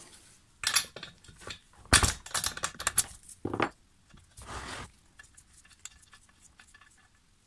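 Metallic clicks and clinks of gloved hands and a tool working at a Stihl MS 391 chainsaw's spark plug, as the plug cap is pulled off and the plug is unscrewed from the cylinder. A quick cluster of sharp clicks comes about two seconds in, a short scrape about four and a half seconds in, then faint light ticking.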